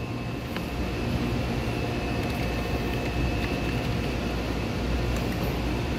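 Steady mechanical hum with a faint, thin high-pitched whine held over it.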